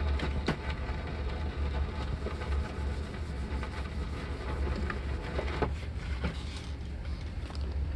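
Vinyl LP surface noise: a steady low hum under light crackle, with a few sharp clicks about half a second in and again near five and a half and six seconds.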